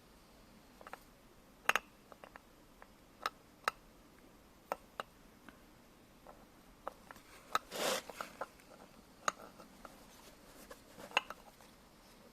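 Light metal clicks and clinks, irregular and quiet, of hand tools and small engine parts being handled during a scooter engine's top-end overhaul, with a brief scraping noise about eight seconds in.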